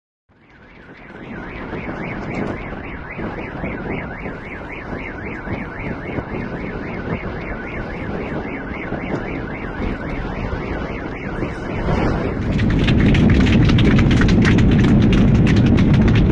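Car alarm sounding with a repeating warble over a rushing background. About twelve seconds in it gives way abruptly to a louder, steady rushing noise.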